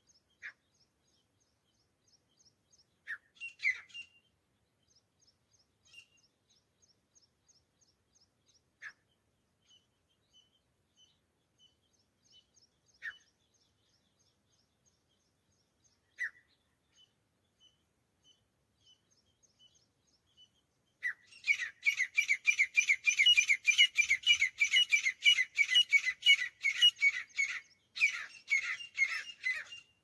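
Grey francolins calling: a few single short calls at first, then, about two thirds of the way in, a loud, fast, rhythmic run of repeated calls that goes on to the end with one short break. Faint, regular high chirps of a small bird sound underneath.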